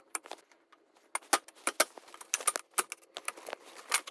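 Wooden bed slats clacking against each other and the metal bed frame as they are spread out: a quick run of light knocks and clicks, sparse at first and coming thick and fast from about a second in.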